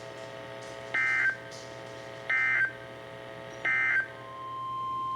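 Emergency Alert System end-of-message code: three short, identical bursts of warbling digital data tones, a little over a second apart. About four seconds in, a steady tone begins to fade in.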